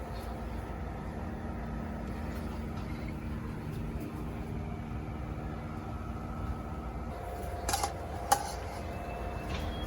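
A steady low hum with two sharp clicks about eight seconds in.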